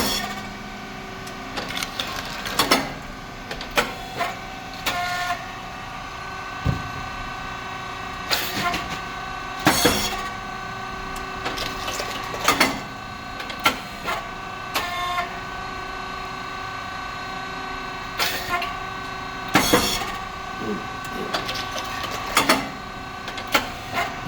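SYP4509 rice cake popping machine running its cycle: a steady hum from the hydraulic motor, pump and cooling fan, with clicks from the moulds and valves, and a sharp pop about every ten seconds as the heated titanium-coated moulds open and a batch of rice chips puffs.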